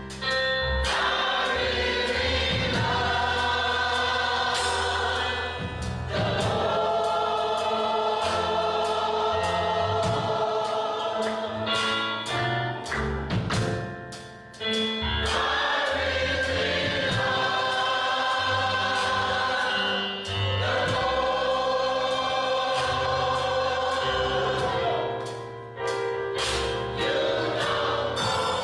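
Gospel choir singing with instrumental backing, in long held chords broken by short pauses.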